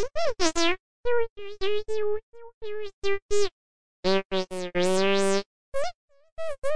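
Digitalker speech synthesizer producing robotic electronic utterances: a quick string of short buzzy syllables whose pitch bends up and down, broken by brief silent gaps, with one longer held sound in the middle.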